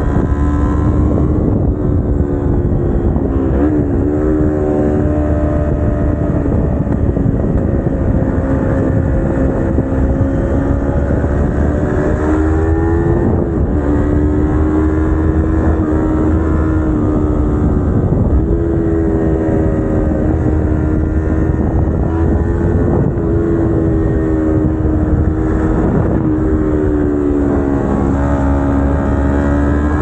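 Kawasaki Ninja 250R's parallel-twin engine heard from the rider's seat while riding, holding a steady pitch for stretches, dipping sharply a few times and climbing again as the throttle is rolled on.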